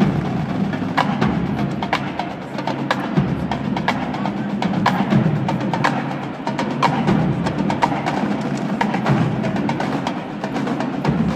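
Marching drumline playing a fast cadence on snare, tenor and bass drums, with many sharp stick strikes over a steady low drum rumble.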